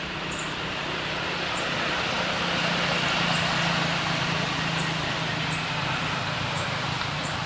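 A motor vehicle passing at a distance: a steady engine hum and road noise that swell to a peak about halfway through and then ease off. A faint high tick repeats about once a second throughout.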